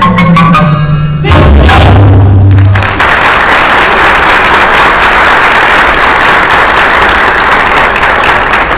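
Marimba folk-dance music closing with rising runs of mallet notes and a loud final held note about a second in, then the audience breaks into steady applause.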